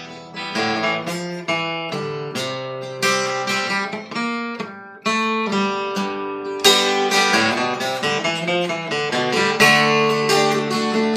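Washburn WMJ11 acoustic guitar strummed and picked through an instrumental break in a folk-rock song, with no singing. The strumming gets harder in the second half.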